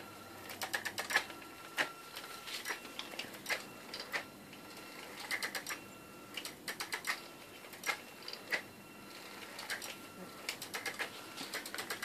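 Homemade Raspberry Pi robotic vacuum cleaner running its autonomous obstacle-sensing program: faint, irregular clicking, some in quick runs, with a faint motor whine that starts and stops a few times.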